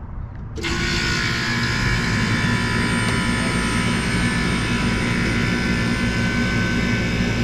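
Air conditioner condenser unit switched on about half a second in: the compressor and condenser fan come on abruptly and run steadily, with a low hum under the whoosh of the fan and a few steady whining tones.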